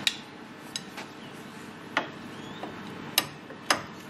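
About five sharp metal clicks and clinks at uneven intervals, as a socket on a long breaker bar is fitted onto an 18 mm brake caliper carrier bolt.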